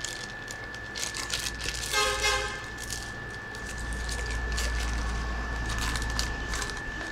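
A brief horn toot about two seconds in, over a steady high whine and scattered small clicks; a low rumble builds from about four seconds on.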